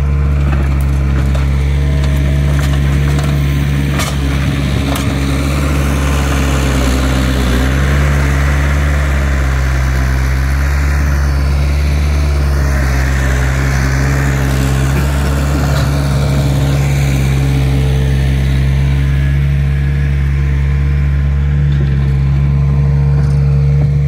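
Cat skid steer's diesel engine running steadily at close range.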